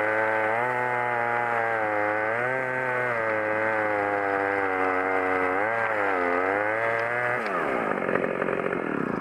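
Stihl chainsaw running at high revs in a cut, its pitch dipping and recovering several times as the chain is loaded. About seven seconds in, the revs fall away.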